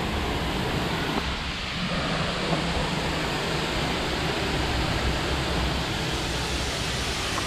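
Waterfall rushing steadily, a continuous roar of falling water with a low rumble underneath.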